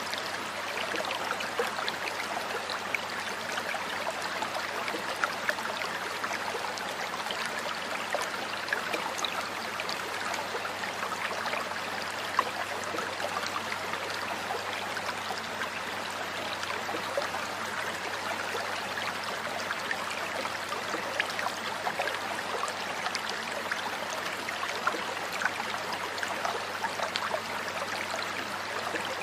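Shallow river flowing over rocks: a steady rush of water with many small splashes and trickles throughout.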